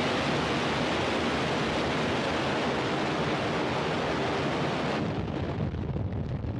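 Falcon 9 first stage's nine Merlin engines firing at liftoff: a loud, steady, dense rushing rumble. About five seconds in, the sound turns duller as its upper range drops away.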